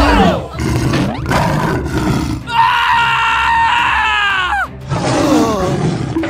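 Dinosaur roar sound effects over background music, with a long, high, held cry in the middle that falls away at its end.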